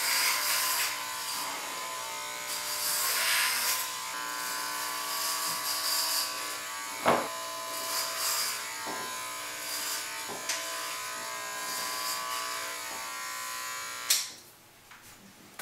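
Electric hair clippers running with a steady buzz, getting louder and hissier at times as they cut through the hair on his head, with a single sharp click about halfway. They are switched off abruptly near the end.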